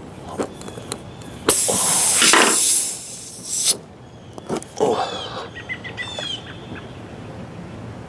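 Air hissing out of a punctured truck tire for about two seconds as a plug insertion tool forces a cement-coated plug into the hole in the tread.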